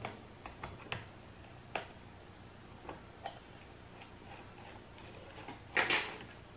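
Scattered small clicks and ticks of a precision screwdriver and tweezers working a stubborn screw in a Lenovo ThinkPad X250's bottom cover, the screw refusing to come out. A louder, brief noise comes near the end.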